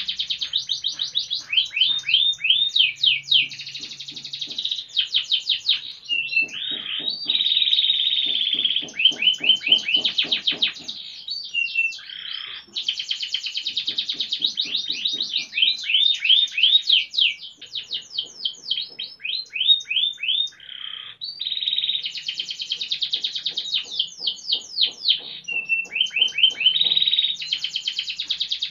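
Domestic canary singing a long, continuous song of fast trills and rolls. Quick runs of repeated high notes alternate with buzzing sustained rolls, broken by two or three brief pauses.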